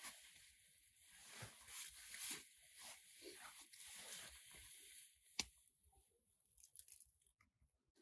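Faint close-up eating sounds: a man biting and chewing a piece of bread, with soft, irregular crunches and tearing, and a single sharp click about five seconds in before it goes quieter.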